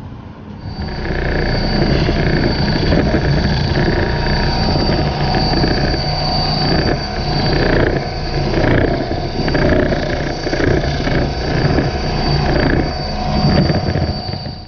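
Benchtop edge belt sander running with a steady high whine, its grinding rising and falling as the maple workpiece's edge is worked against the belt.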